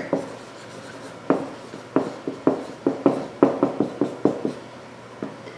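A run of light, irregular clicks: a single one about a second in, then a quick uneven string of a dozen or so over the next two to three seconds.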